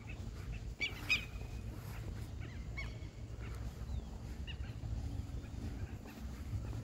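A few short animal calls, the loudest cluster about a second in and weaker ones later, over a steady low rumble.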